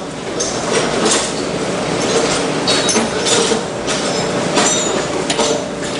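Hammer blows on hot steel at an anvil, a dozen or so sharp strikes at an irregular pace, over a steady background hum.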